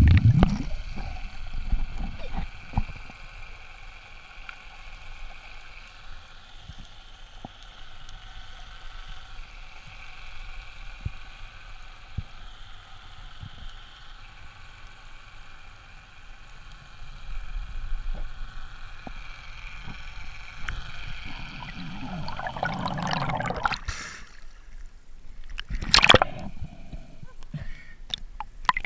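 Underwater sound heard through an action camera's housing during a breath-hold dive: a steady hiss with faint scattered clicks. Near the end, water rushes and splashes loudly as the diver comes up through the surface.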